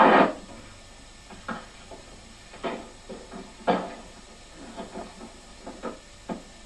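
A loud sound cuts off right at the start, then about a dozen soft, irregular knocks and bumps follow over a steady soundtrack hiss.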